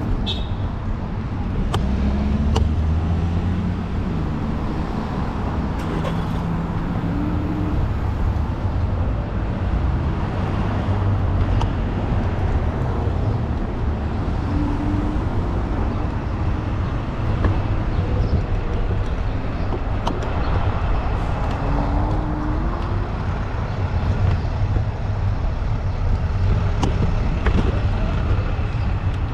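Street traffic going by, with a steady low rumble of wind on the microphone and a few short rising engine notes.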